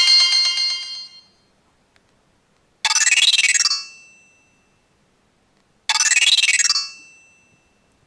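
Samsung X680 flip phone playing polyphonic ringtone previews from its loudspeaker as the ringtone list is scrolled. One short phrase fades out about a second in. The next ringtone's short phrase then plays twice, about three seconds apart, each fading out.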